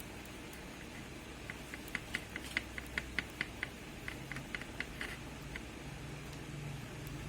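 A rapid series of short, high clicks or chirps, about five a second, lasting about four seconds with a brief pause partway through, over a low steady hum.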